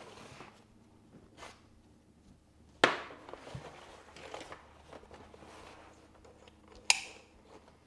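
Canvas roll-up tool bag being handled and strapped up, with faint rustling of fabric and webbing. Two sharp clicks, about three seconds in and near the end, from its plastic side-release buckles snapping shut.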